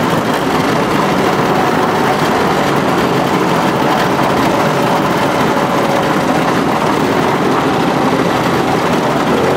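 Vintage snowmobile engine running steadily at low speed, heard close up from the seat while riding.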